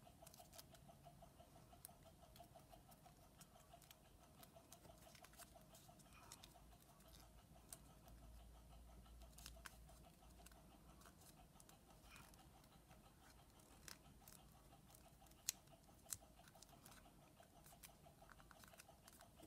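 Near silence with faint crinkling and creasing of origami paper being folded by hand, over a faint steady hum; two sharper paper crackles come about three-quarters of the way through.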